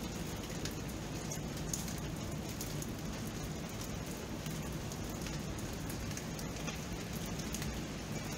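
Steady rain: an even hiss with many small raindrop ticks scattered through it.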